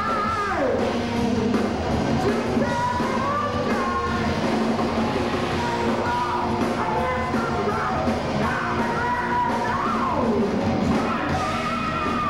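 Heavy metal band playing live, loud and dense: distorted electric guitars, bass and drums under a high lead line. The lead line drops steeply in pitch twice, about half a second in and again about ten seconds in.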